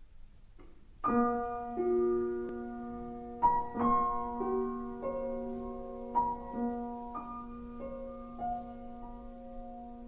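Slow, soft piano background music that starts about a second in: single notes and chords struck now and then, each ringing on and fading.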